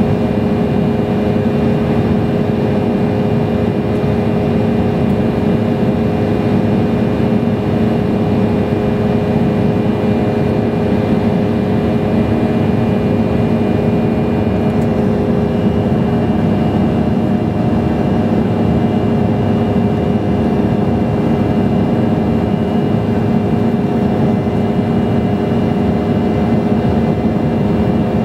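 Airliner cabin noise inside an Embraer E175 in flight: the steady roar of its wing-mounted General Electric CF34 turbofans and the rushing air, with a steady hum whose tones shift slightly about halfway through.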